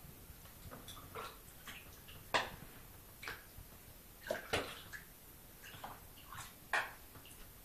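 Ping pong ball batted by kittens, tapping and bouncing against the sides of a bathtub in irregular light taps, the loudest about two and a half, four and a half and seven seconds in.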